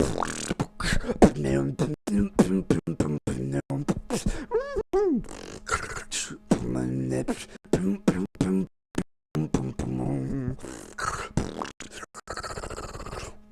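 Human beatboxing: rapid vocal drum sounds, sharp clicks and snare-like hits, woven with hummed notes that sweep up and down in pitch. It breaks off briefly about nine seconds in, then carries on.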